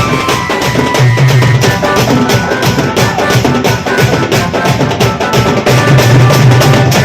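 Loud band-party music: fast, dense drumming with a deep bass drum under a held high melody line, with long low bass notes swelling about a second in and again near the end.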